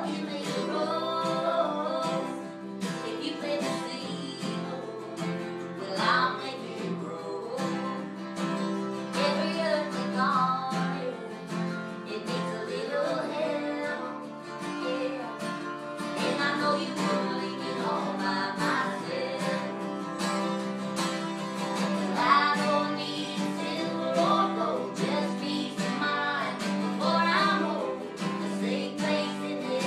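Live acoustic performance: a woman singing over two strummed acoustic guitars.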